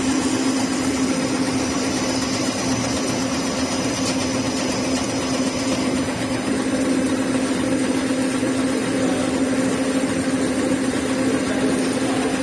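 Two-color food compressor running at a steady pace: a constant, even-pitched motor hum over mechanical noise, unchanged throughout.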